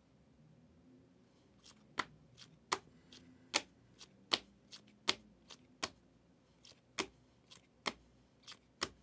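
Rigid plastic top-loader card holders clicking against each other as a stack of sports cards is flipped through one at a time: a run of sharp clicks starting about two seconds in, about one or two a second.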